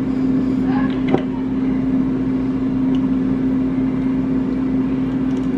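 Steady hum of a running kitchen appliance, an even drone with one clear pitch, with a faint click about a second in.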